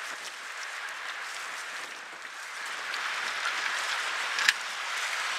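Choppy lake water splashing and lapping around a swimming Labrador retriever, a steady splashy hiss that grows louder about halfway through. A single sharp click stands out near the end.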